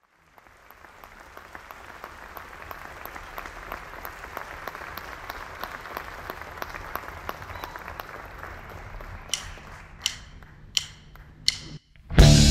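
Audience applauding and clapping, fading in, then dying away. Four sharp, evenly spaced clicks follow. The full electric band, guitars and drums, comes in loudly just before the end.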